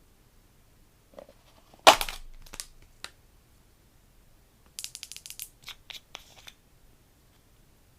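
Crunchy slime being pressed and poked: a loud crackling crunch about two seconds in, a single pop a second later, then a quick run of small crackles and pops.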